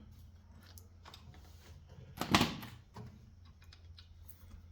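Light clicks and knocks of metal parts being handled, with one louder clatter a little over two seconds in.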